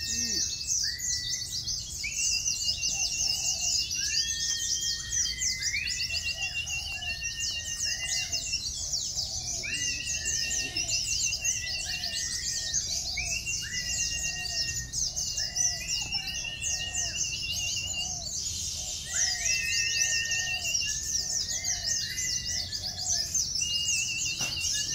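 Many caged white-eyes (pleci) singing at once: a dense, continuous high twittering, with clear whistled notes lower down repeating every second or so, some breaking into a short trill.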